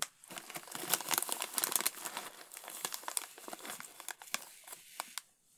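Snack bag crinkling as a hand rummages inside it for thin, crispy potato sticks, mixed with the crunch of the sticks being chewed. It is a dense run of small crackles that stops about half a second before the end.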